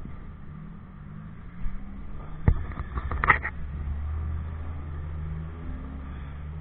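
Motorcycle engine running steadily under way, a low rumble that grows stronger a little past halfway. A sharp knock comes about two and a half seconds in, with a brief higher-pitched sound just after it.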